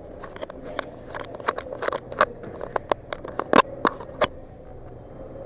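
Hand tools clicking and tapping irregularly as the cover over the motorcycle's gear-position sensor is unbolted and pulled off. There are a dozen or so sharp knocks, several loud ones between two and four and a half seconds in, over a steady background hum.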